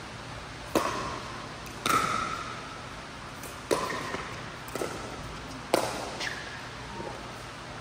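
Pickleball rally: paddles striking the hollow plastic ball in a string of sharp pocks, about one a second, some louder than others. Each hit echoes briefly in the indoor hall.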